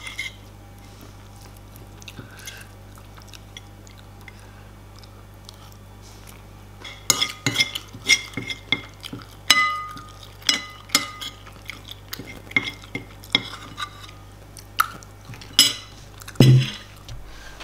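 Metal spoon scraping and clinking against a ceramic bowl as the last of the rice is scooped up: a few faint clicks at first, then a quick run of sharp, ringing clinks from about seven seconds in, and a heavier knock near the end.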